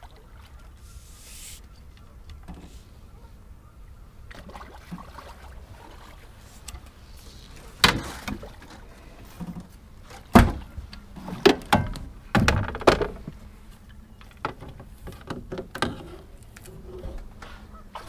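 A run of loud knocks and thumps on an aluminium fishing boat as a hooked catfish is netted and brought aboard: a single knock, then a cluster of heavy thumps, then lighter knocks.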